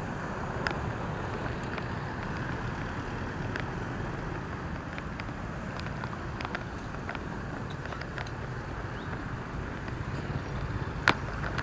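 Road traffic at a junction: a steady rumble of cars and motorbikes passing, with scattered light clicks and one sharp click near the end.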